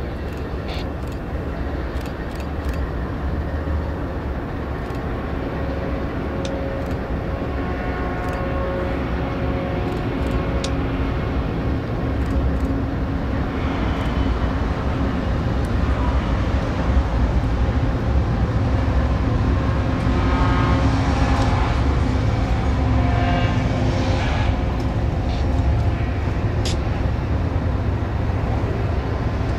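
BNSF double-stack intermodal freight train rolling past: a steady low rumble of diesel locomotives and wheels on rail. It grows louder from about halfway as the container cars go by.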